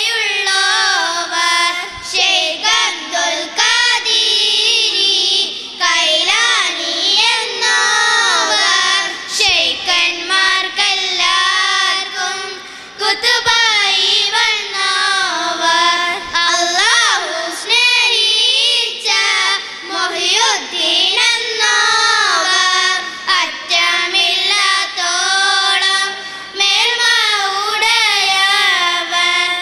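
A group of young girls singing a song together into microphones, one melody line sung with wavering, ornamented glides and short breaks between phrases.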